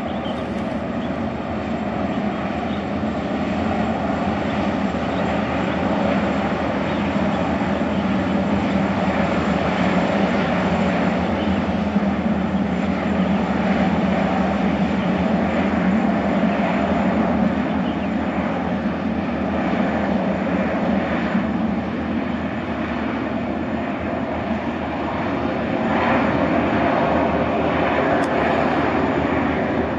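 Boeing Jetfoil 929 hydrofoil ferry running foilborne: its twin gas turbines make a steady, jet-like whine over the rushing of its waterjets and spray. The noise swells and eases slightly as the craft passes.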